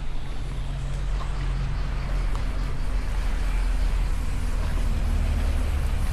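An engine running steadily, a low hum whose pitch shifts about halfway through.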